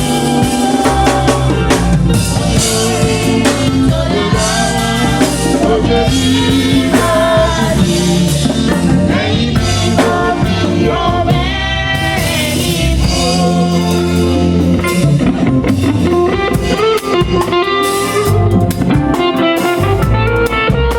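Nigerian gospel band music playing steadily, with a drum kit and guitar over a sustained bass line.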